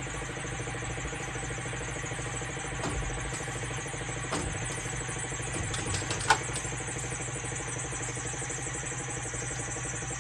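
Steady machine hum with a hiss over it. A few sharp knocks come about three, four and six seconds in, the last the loudest.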